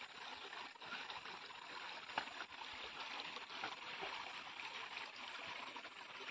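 Faint, steady rush of a shallow stream flowing over stones, with a few faint clicks of footsteps on the river pebbles.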